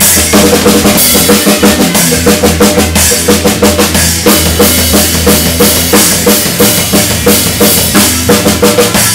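Live rock band playing: a drum kit keeps a steady beat of bass drum and snare, with electric guitar and bass guitar playing along.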